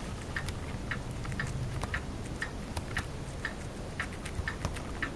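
Even ticking, about two ticks a second, with a few sharper, fainter clicks between the ticks.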